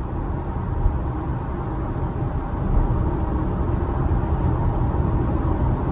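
Steady road and tyre rumble inside the cabin of a Tesla Model Y driving on wet roads, with no engine note, and one brief knock just under a second in.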